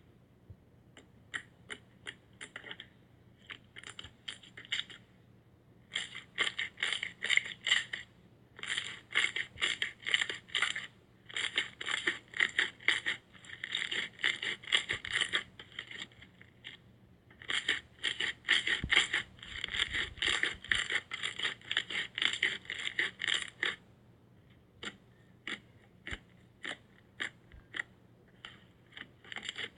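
Slime being squeezed and worked by hand, giving quick runs of sharp crackling clicks and pops, broken by a few short pauses.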